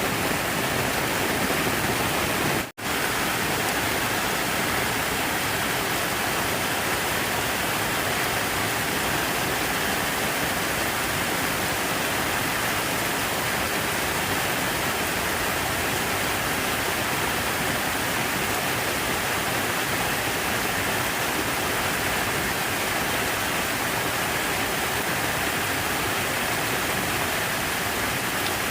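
Falling water rushing in a steady, even wash, like a waterfall or fountain. It cuts out for a split second about three seconds in, then carries on unchanged.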